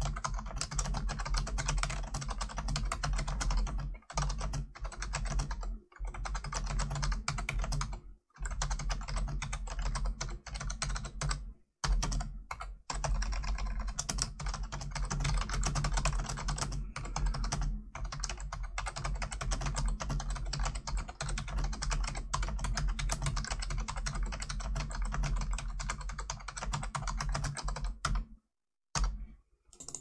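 Fast, steady typing on the HP Wireless Keyboard 300's membrane keys: a dense run of soft key clicks, broken by a few brief pauses and a longer one near the end.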